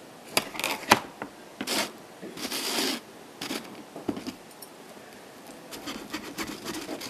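Irregular scratching, rubbing and clicking of things handled close to the microphone, with short hissing bursts about two and two and a half seconds in.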